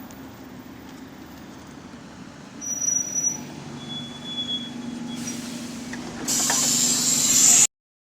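Bus running, heard from inside the cabin: a steady low engine hum with road noise, some louder clatter about three seconds in, and a loud hiss starting after five seconds, growing louder, then cutting off abruptly near the end.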